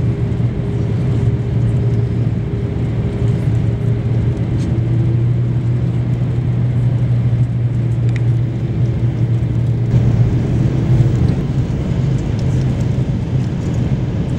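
Steady engine and airflow drone inside the cabin of an Airbus A330-200 on descent: a low hum with a fainter higher tone above it, which weakens about two-thirds of the way through.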